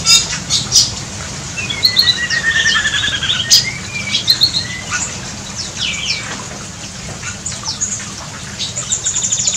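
Several songbirds calling in an aviary, over a steady low hum. About two seconds in there is a long falling trill, followed by an assortment of short chirps and whistles.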